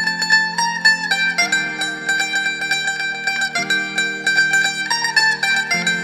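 Instrumental music: a plucked string instrument playing a quick repeated-note melody over a held low chord that changes about every two seconds.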